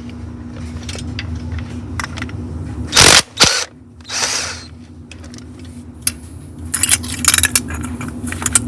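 Power tool spinning out the oil pan bolts in short bursts, three of them about a third of the way in, then a series of sharp clicks and rattles near the end, over a steady low hum.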